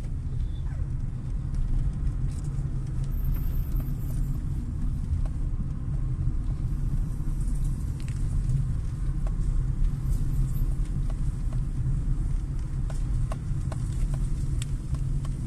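Car cabin noise while driving slowly: the engine and tyres make a steady low rumble, with a few faint ticks.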